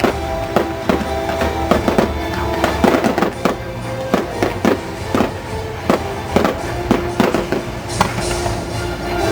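Fireworks show: firework shells bursting in irregular bangs, two or three a second, over loud music.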